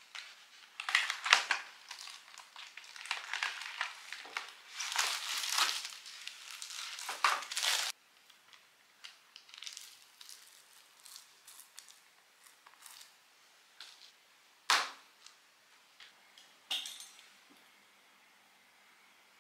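Crinkling and rustling of puff pastry packaging as a box of frozen puff pastry sheets is handled and the sheets are taken out, dense for the first eight seconds. Then come soft rustles and light ticks as the pastry sheets are peeled apart, and two sharp knocks near the end.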